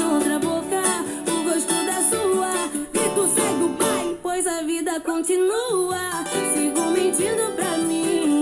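Cavaquinho strummed in chords over a recorded pop backing track with a steady beat, with wordless sung runs that bend up and down in pitch.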